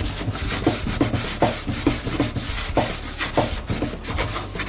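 A cleaning pad loaded with Bon Ami cleanser scrubbed hard back and forth on a toaster oven surface. It makes a rasping rub at about two to three strokes a second.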